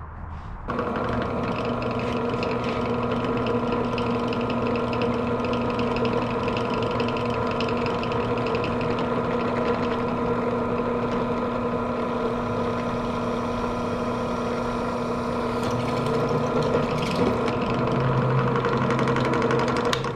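Benchtop drill press switched on about a second in, its motor running steadily with a hum while a 1/8-inch bit drills a pilot hole in a spar attachment bracket. A lower hum and a little scraping join near the end as the bit cuts.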